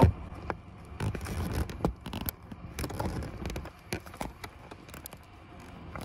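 Scattered small clicks, taps and scrapes of a hand working behind a truck dashboard, handling the plastic harness connector on the back of the 12-volt power socket.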